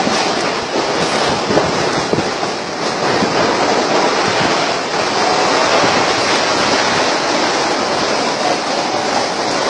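Severe storm, which the uploader calls a tornado: a loud, steady rush of wind and heavy rain, with wind buffeting the microphone.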